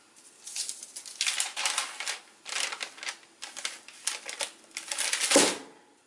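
Baking paper rustling and crinkling in a run of short bursts as it is handled and pressed down over dough in a cane proofing basket. Near the end comes the loudest rustle with a soft thud as the basket is turned over onto the paper.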